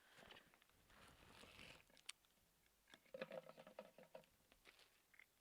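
Near silence with faint rustling and light clicks of packaging and a card being handled. A brief faint hum comes about three seconds in.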